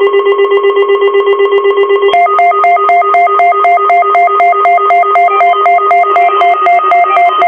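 Loud electronic alert tone of an emergency broadcast test warning. A low beep pulses rapidly, then about two seconds in a pattern of beeps alternating between two higher notes comes in on top.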